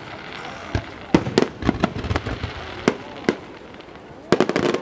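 Aerial fireworks bursting: sharp bangs at irregular intervals, with a rapid flurry of bangs near the end.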